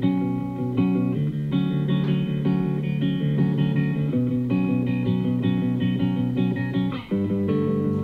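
Guitar-led music with plucked notes and bass, played through a Bang & Olufsen Beoplay A9 Mk4 wireless speaker, with a brief break about seven seconds in.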